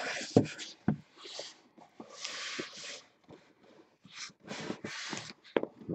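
A cardboard box being handled and turned around on a table: hands rubbing and sliding it in short scraping bursts, with a couple of light knocks in the first second.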